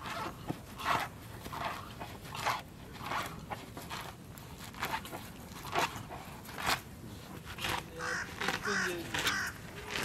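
White rhinoceros cropping grass close by, a steady series of short tearing rips, a little over one a second, as its broad lips pull the turf.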